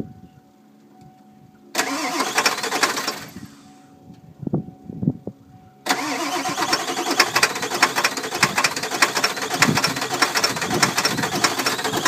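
1995 Ford F-250's 7.3-litre Powerstroke V8 diesel cranking on the starter: a short crank about two seconds in, then a longer one from about six seconds in that keeps going without the engine catching. A hard cold start, which the owners put down to a failed glow plug relay.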